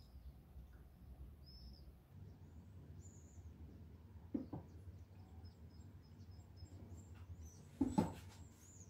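A quiet kitchen with faint bird chirps in the background. There is a soft knock about halfway through, and a louder clunk near the end as a plastic oil bottle is set down on the countertop.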